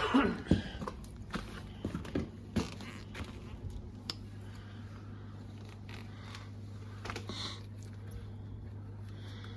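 Scattered light knocks and scrapes, clustered in the first few seconds with a few more near the end, over a steady low hum.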